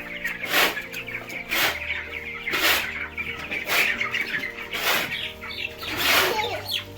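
Young broiler chickens peeping and clucking, over background music with a steady beat of about one stroke a second.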